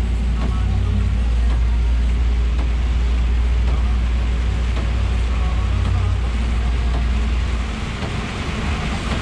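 Cab interior of a Scania R420 truck at motorway speed in rain: the six-cylinder diesel engine's steady low drone under an even hiss of tyres on the wet road and rain. About 8 seconds in, the low drone drops away.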